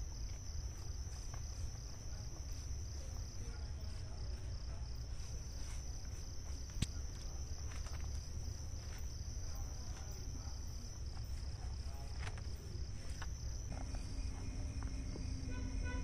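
Night insects chirping in a steady, high-pitched chorus over a low background rumble; a second, lower chirping joins in near the end.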